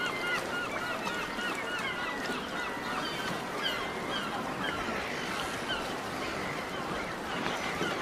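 A flock of birds calling over one another in many short, repeated, rising-and-falling calls, over a steady background of noise.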